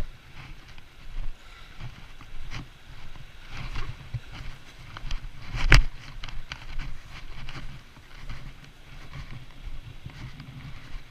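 Scrambling on foot over rocks: scattered scuffs and knocks against stone, with one sharp knock about six seconds in, over a low rush of fast river water.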